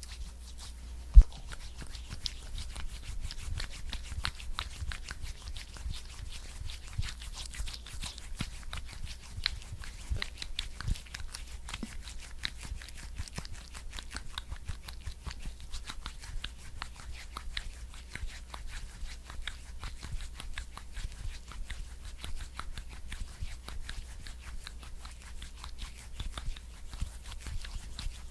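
Close-miked sticky, wet crackling of a thick skincare product such as petroleum jelly being worked, a continuous dense stream of fine crackles and clicks. One sharp knock stands out about a second in.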